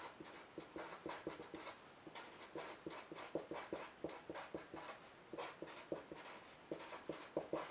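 Felt-tip marker writing on paper: a quick run of short scratchy strokes as words are lettered by hand.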